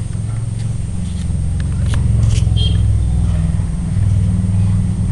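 Loud, steady low rumble that grows louder about two seconds in, with a few faint clicks over it.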